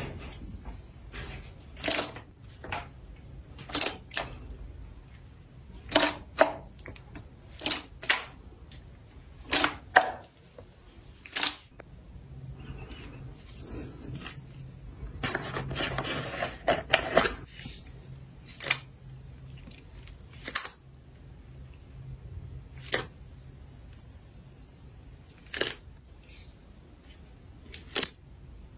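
Slime being pressed and poked, giving a string of sharp clicks and pops about every one to two seconds, with a longer crackling squish in the middle.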